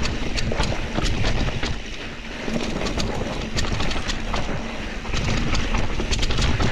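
Mountain bike riding a dirt singletrack: wind rumbling on the microphone and tyres rolling over dirt and leaves, with frequent sharp clicks and rattles from the bike over bumps.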